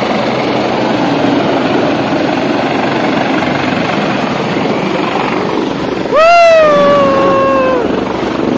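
Helicopter flying low over the water nearby, its rotor noise a steady rushing din. About six seconds in, a person gives a loud, long call that rises, then slowly falls in pitch, over the helicopter noise.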